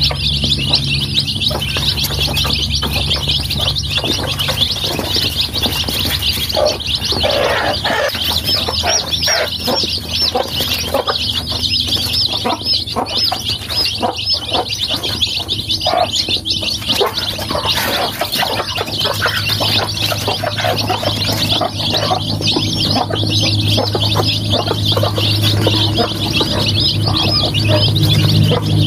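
Many young chicks peeping at once, a continuous chatter of overlapping high chirps.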